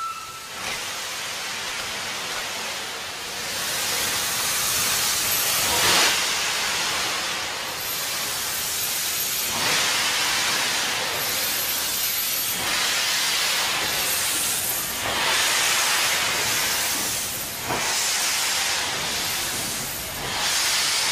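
Metre-gauge steam locomotive blowing off steam: a loud, dense hiss that surges and eases every second or two.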